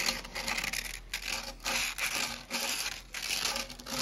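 Sandpaper rubbing round the inside of the bush hole in a Ford Fiesta Mk6 rear axle beam, sanded by hand in quick back-and-forth strokes, about two a second.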